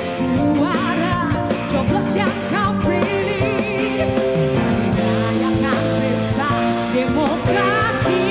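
A woman singing an upbeat song into a microphone, her voice wavering with vibrato on held notes, over instrumental accompaniment with a steady beat.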